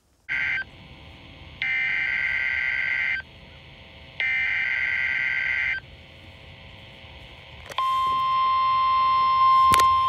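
NOAA Weather Radio emergency alert coming through the speaker of a Baofeng UV-5R handheld radio. First comes the tail of one SAME header data burst, then two more buzzy data bursts about a second apart. About 8 s in, the steady 1050 Hz warning alarm tone starts, marking a required weekly test of the Emergency Alert System.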